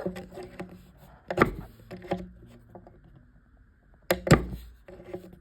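Sharp knocks and small clicks of hand work on an IKEA plastic cam lock in a particleboard panel, two louder knocks about a second and a half apart from three seconds, as the cam lock is pried and pulled out.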